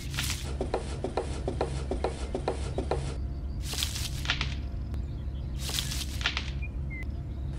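A small toy strawberry handled and pressed into fine sand: a run of quick light ticks, then two gritty scrapes of sand, over a steady low hum.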